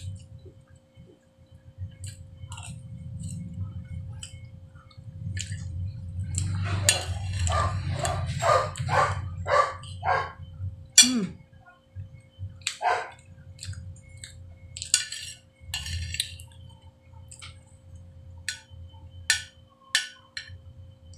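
Close-up eating sounds: mouth smacks and chewing as cake with icing is eaten, with a denser run of rhythmic smacks in the middle. Scattered sharp clicks of a metal fork against a ceramic plate come throughout.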